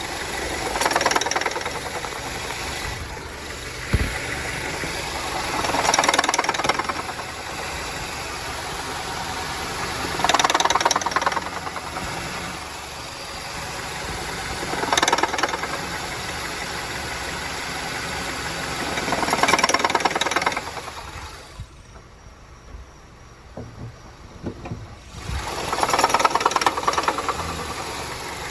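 2009 Honda Civic sedan engine running with a rattling, knocking noise that swells and fades every four to five seconds, with a quieter stretch a little past the middle. This is the bad noise that has persisted after the water pump and belt tensioner were replaced.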